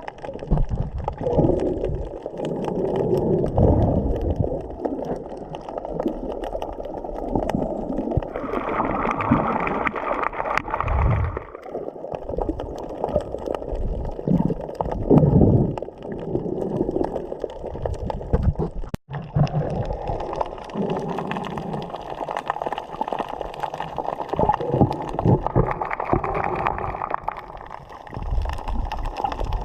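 Water gurgling and sloshing right at the camera's microphone, in uneven, muffled surges.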